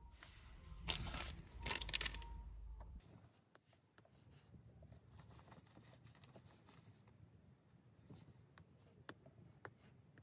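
Corduroy fabric pouch rustling as it is handled, then, about three seconds in, faint scattered taps of a stylus on a tablet screen.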